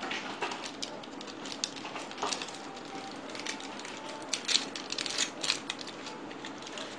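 A foil sachet crinkling and tearing as it is opened by hand: a run of small crackles, densest about four to five and a half seconds in.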